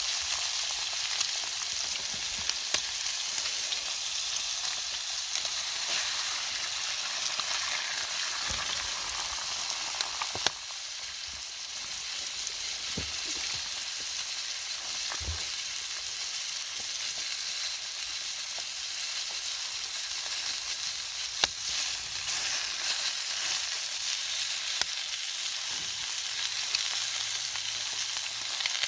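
Food frying in a pan over a campfire: a steady sizzle with scattered sharp pops.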